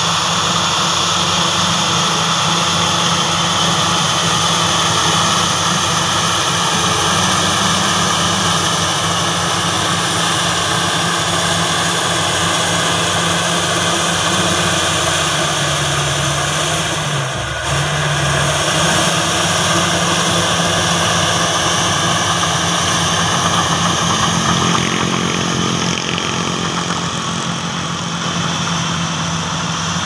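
Crawler bulldozer's diesel engine running steadily under load as it pushes soil, with a steady high whine over the engine. The engine note dips briefly about halfway through and shifts again later on.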